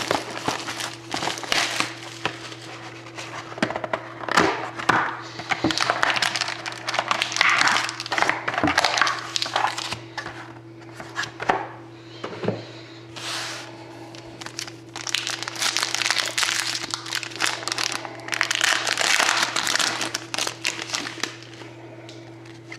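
Trading-card pack wrappers being torn open and crinkled by hand, in irregular bursts of rustling and crackling with sharp clicks.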